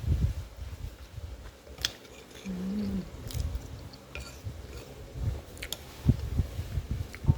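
Close-up chewing of a mouthful of food, in soft repeated bites, with a few small clicks of cutlery against a dish and a short closed-mouth hum about two and a half seconds in.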